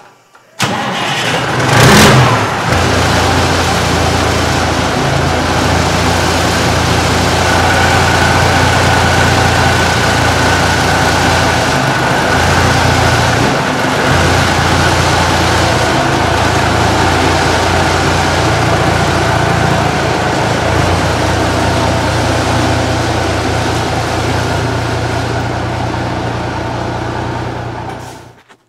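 1979 Peterbilt 359's diesel engine starting about half a second in, revving once briefly, then idling steadily. A faint steady whine sits above the idle from about eight seconds in, and the sound cuts off just before the end.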